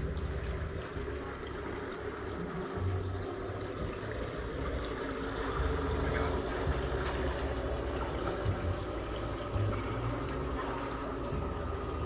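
River ambience: water lapping and trickling at the surface, with irregular low rumbling underneath.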